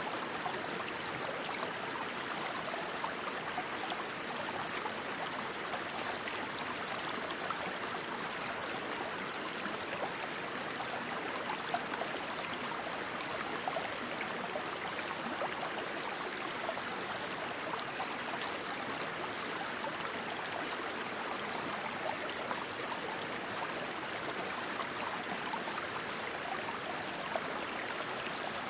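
Rushing stream water, a steady rush, with short high-pitched chirps repeating at irregular intervals over it, twice running together into a quick trill.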